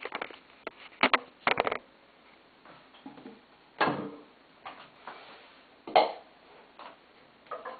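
Small household objects being lifted off and set down on a ceramic toilet tank lid: scattered clicks and knocks, a dull thud about four seconds in and the sharpest knock about six seconds in.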